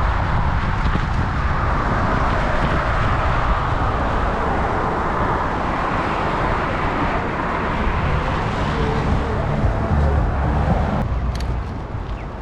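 Steady noise of road traffic on a busy highway, heard from a moving bicycle with wind rumbling on the microphone; it eases a little near the end.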